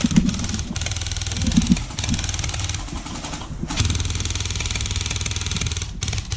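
Airsoft guns firing on full auto: rapid, evenly spaced rattling shots in several long bursts, the longest about two seconds, with short breaks between them.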